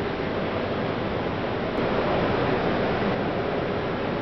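Steady rushing noise, even and unbroken, like surf or wind, with no separate knocks, tones or voices.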